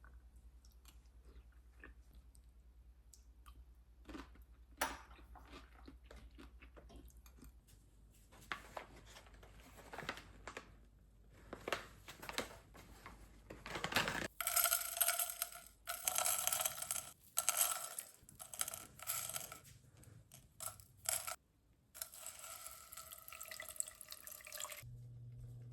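Kitchen sink sounds: light clicks and handling noises, then tap water running in on-and-off spurts from about halfway through, as when rinsing something under the faucet.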